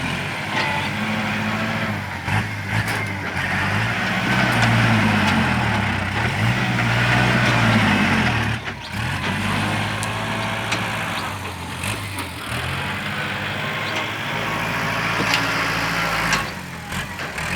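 A machine's engine running, its speed rising and falling again and again as it works. A few sharp knocks sound over it.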